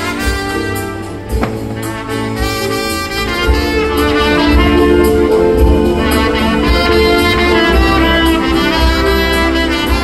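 Lively brass music with a bass line and a steady beat, a trumpet carrying the tune. It grows louder about three and a half seconds in.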